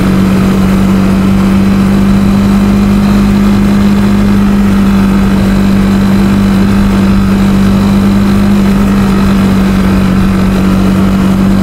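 Vehicle engine pulling steadily in third gear, climbing uphill at an even, unchanging pitch.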